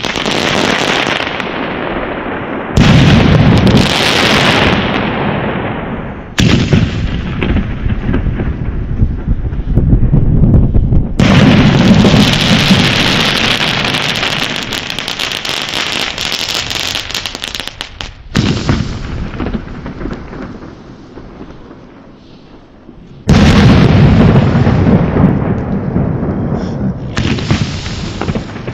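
Röder Mega Shot single-shot mortar tubes (Bombenrohre) with shells bursting in the sky, in a run of cut-together clips. About six times a sudden loud burst starts and a dense fizzing crackle fades away over a few seconds.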